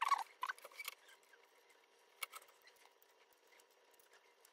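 Needle-nose pliers clicking and scraping on the thin metal tabs of a Dyson V6 battery pack as the tabs are bent straight: a quick run of small clicks in the first second, then a single sharper click about two seconds in, with light ticks between.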